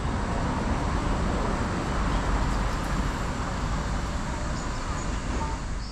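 Steady road traffic noise, an even rumble without distinct events.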